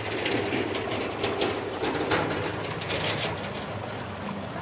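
A bridge overhead clattering and rattling in irregular knocks as people cross it, noisy over the rush of a fast river.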